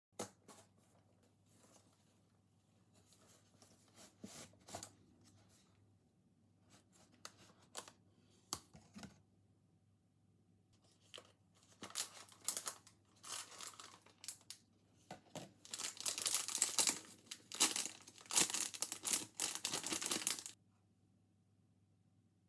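Packaging of a chocolate fondue kit being unwrapped: crinkling and tearing of a silvery wrapper on a plastic cup, scattered at first, then denser and louder in the second half before stopping suddenly near the end.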